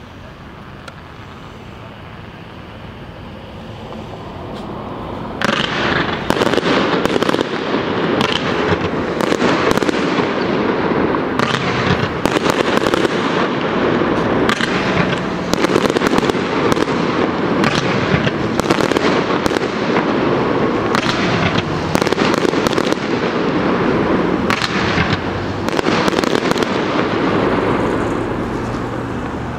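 A multi-shot fireworks cake firing. A rapid, dense string of shots and crackling bursts starts suddenly about five seconds in, keeps up for over twenty seconds, and eases off near the end.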